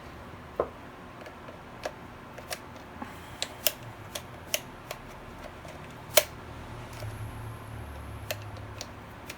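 Irregular sharp clicks and taps of a car door lock mechanism being handled and worked by hand, about a dozen, the loudest about six seconds in. A faint low hum runs under the second half.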